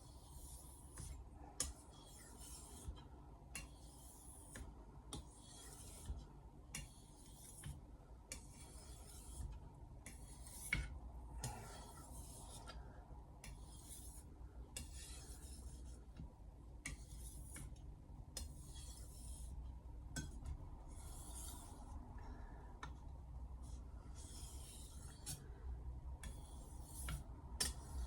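Steel blade of a Misono Japanese kitchen knife being stroked back and forth across a whetstone, a gritty scraping rasp on each stroke, roughly one stroke a second.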